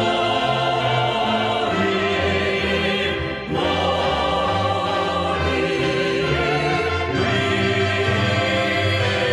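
Music with a choir singing, dipping briefly about three and a half seconds in.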